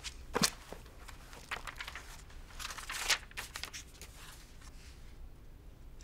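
Paper rustling and crinkling with a few short knocks, as things are picked up and handled; the sounds come in the first half and then die away to faint room noise.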